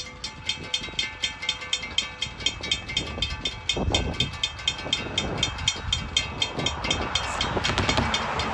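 Florida East Coast Railway freight train rolling past, its rumble swelling about four seconds in and again near the end. A rapid, even ticking of about five strokes a second runs through it.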